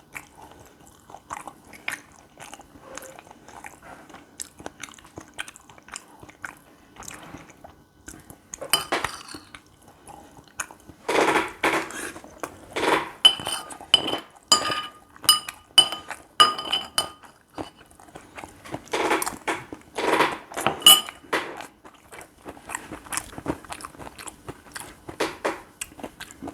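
Close-miked chewing of gopchang fried rice, with many small mouth clicks. About eleven seconds in and again near twenty seconds come louder stretches of utensil-on-dish clatter with short ringing tones.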